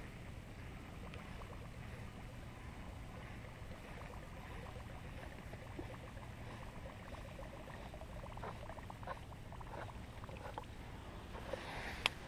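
Faint steady low rumble of water and wind, with light irregular ticking from a baitcasting reel being wound in during the second half and a sharp click just before the end.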